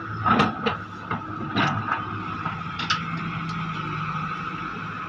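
Heavy excavator running, its engine giving a steady hum with a high steady whine over it. There are four or five sharp knocks in the first three seconds.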